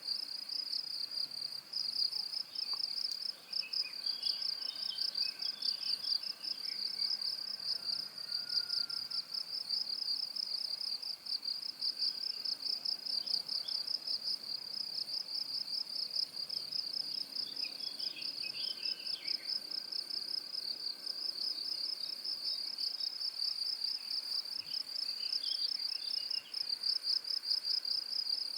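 Cricket chirping in a continuous high-pitched trill of rapid, even pulses.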